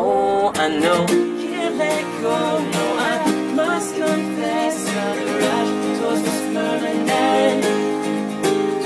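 Acoustic guitar strummed with a voice singing a melody over it, played live and unamplified.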